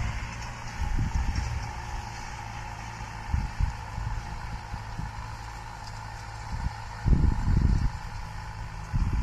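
Tractor engine running steadily at a distance while it works a dry field. Low rumbling gusts of wind buffet the microphone a few times, the strongest near the end.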